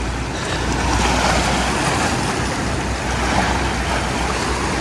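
Sea surf washing on the shore, a steady rushing noise, with wind rumbling on the microphone.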